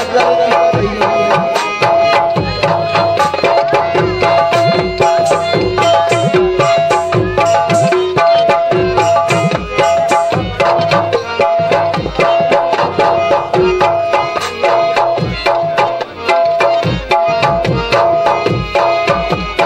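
Instrumental interlude with no vocals: a harmonium repeats a short melodic figure over fast, steady tabla and dholak drumming.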